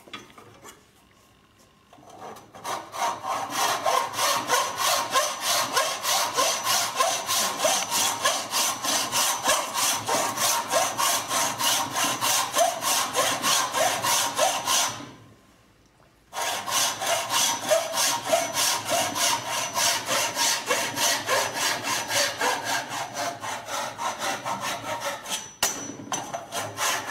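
Traditional Chinese frame saw (bow saw) cutting by hand down into the end of a wooden board clamped in a vise, along a marked line. Rapid, even back-and-forth strokes start about two seconds in, stop for a second or so past the middle, then resume.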